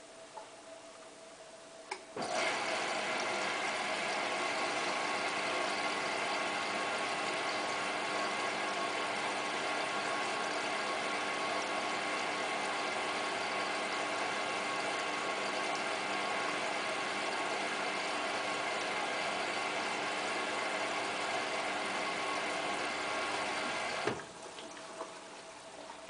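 Hotpoint Ultima WT960 washing machine's motor turning the drum in a wash tumble. It starts suddenly about two seconds in and runs as a steady whine with a hum of several tones, audibly including the motor bearings, then stops abruptly near the end.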